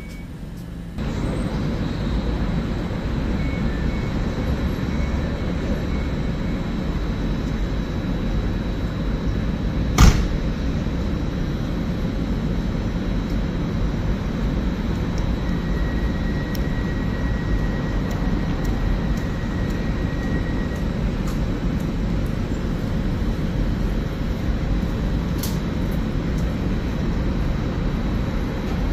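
Train running at the station: a steady low rumble that starts abruptly about a second in, with a single sharp click about ten seconds in.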